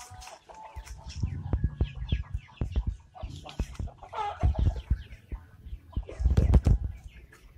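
A flock of kampung super chickens clucking and chirping, with repeated low thumps and rustling underneath that are loudest near the end.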